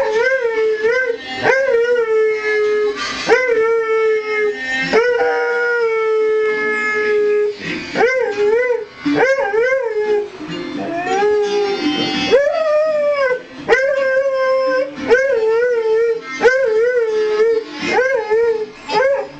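Airedale terrier howling along to music: a string of wavering howls that rise and fall in pitch, some short and wobbling, a few held steady for two to four seconds.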